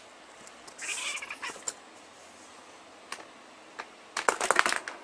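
Two cats squaring off: one gives a short, harsh hiss about a second in. Near the end comes a rapid flurry of sharp clicks and knocks, the loudest thing here.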